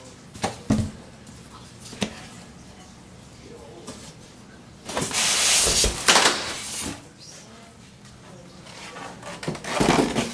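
Handling noise from unboxing a microwave: a few knocks, then a loud rustling scrape lasting about two seconds midway, and more rustling near the end.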